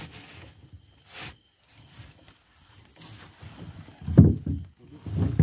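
Wet fishing net being hauled by hand over the side of a small boat: rustling and swishing of netting, with two dull low thumps about four and five seconds in.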